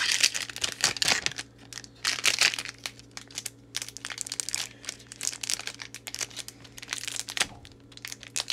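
Foil booster-pack wrapper crinkling as Pokémon cards are slid out of it and handled: a run of irregular crackles, busiest in the first few seconds and sparser after.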